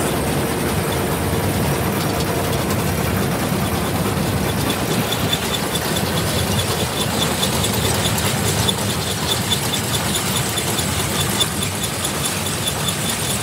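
John Deere 635F flex header running on its machine, with engine noise under a steady mechanical clatter. A regular, fast, high-pitched ticking joins in about a third of the way through.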